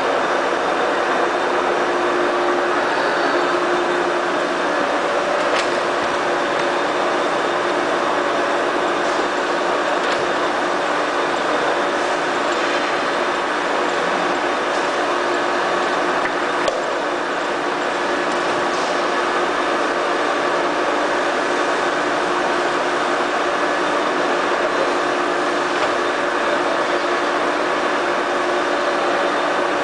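FAT 630 straight-bed lathe running under power: a steady mechanical whir with a few held tones through it and an occasional faint click.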